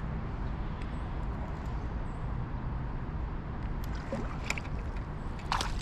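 A steady low rumble of outdoor background noise, with a few faint clicks late on and a short, sharper sound just before the end.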